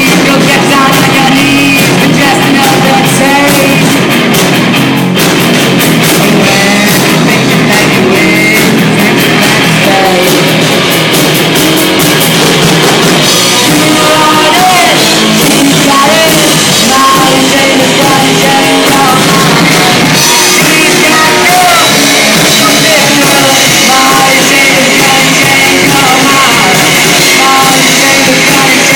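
Loud rock music with singing over drums and guitar, playing steadily throughout.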